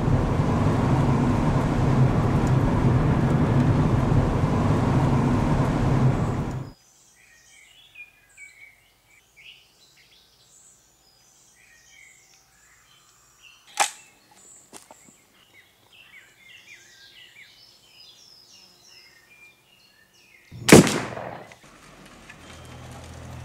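Steady road and engine noise from inside a moving car cuts off about seven seconds in, giving way to birdsong. Two sharp shots follow: a lighter crack about halfway through and a louder one near the end with a short ringing tail.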